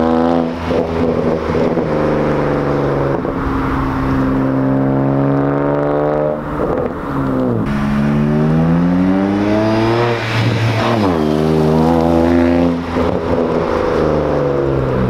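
Straight-piped exhaust of a 2007 BMW 335i's twin-turbo N54 inline-six, muffler and resonators deleted, during full-throttle first-to-second-gear pulls past the roadside. The pitch climbs and drops sharply several times. Around ten seconds in there is a steep fall in pitch as the car goes by.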